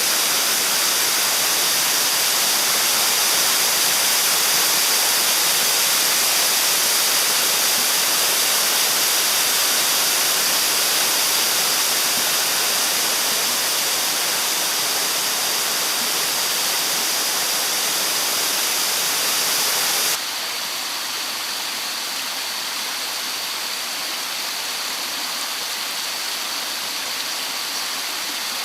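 A mountain stream rushing over rocks, a steady loud rush of water. About two-thirds of the way through it drops suddenly a little quieter and duller, then runs on evenly.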